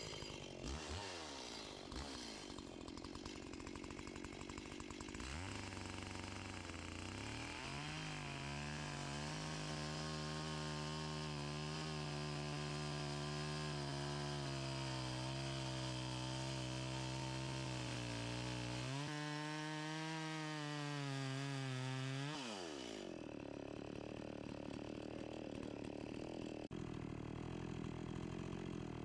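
Echo 670 chainsaw ripping lengthwise through a big log, its engine held steady under load for about ten seconds. Near the end of the cut it speeds up to a higher pitch, then winds down to idle about two-thirds of the way through and idles to the end.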